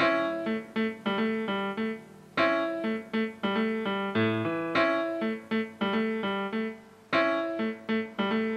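Background music played on piano: single notes and chords struck one after another, each left to ring and fade.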